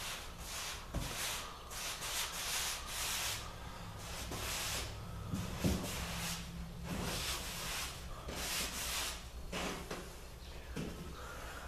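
Hand-held finish applicator dragged across a sanded wood floor, spreading waterbase seal coat in a series of irregular swishing strokes. A single knock sounds about halfway through.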